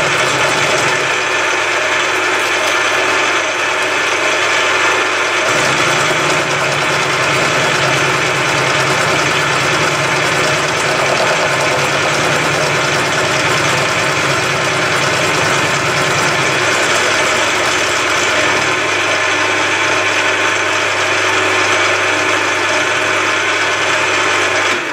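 Milling machine running with an end mill angle-milling a steel jig part held in a vise: a steady, loud machining noise. A lower hum joins about five seconds in and fades out again around seventeen seconds.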